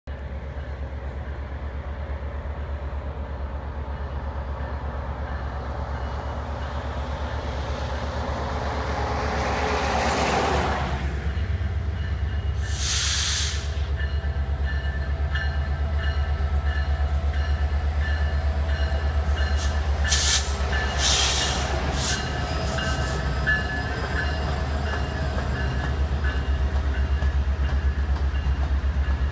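Canadian Pacific Holiday Train's diesel locomotive approaching and passing with a steady low rumble, loudest as it goes by about ten seconds in. The freight cars follow, rolling past, with a brief hiss soon after the locomotive passes and a few short sharp sounds around twenty seconds in.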